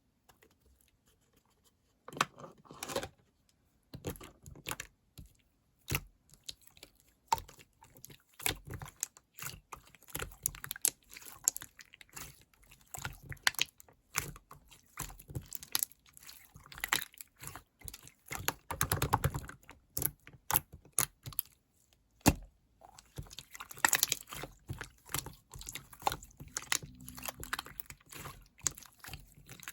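Green slime being played with, making irregular sticky clicks, pops and crackles that start about two seconds in.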